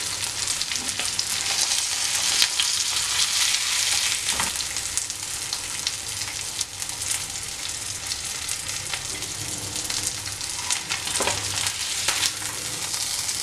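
Hot oil sizzling and crackling in a frying pan around two masala-coated pomfret, fried through and being lifted out of the oil with a steel slotted spoon. A couple of sharper clinks of the spoon against the pan, about four seconds in and again near the end.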